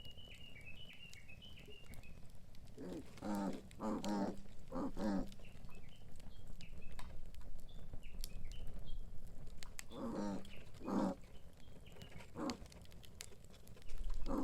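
Pigs grunting and squealing in short pitched calls, a cluster of four about three seconds in and another two or three around ten seconds in.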